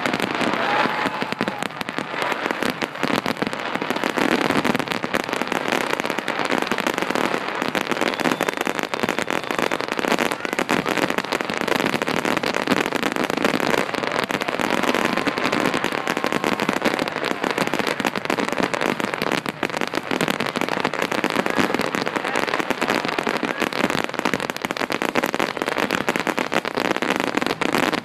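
Grand finale of a fireworks display: a dense, unbroken barrage of aerial shells bursting and crackling, so many reports at once that they run together with no pause.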